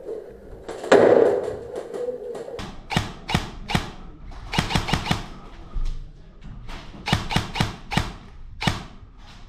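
Airsoft guns firing, sharp snapping shots in singles and quick bursts of two to four, after a loud thud about a second in.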